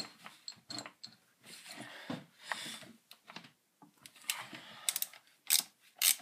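Scattered clicks and short scrapes of a screwdriver working at the screws of a Poulan 1800 Woodshark chainsaw's housing, with a run of sharper clicks near the end.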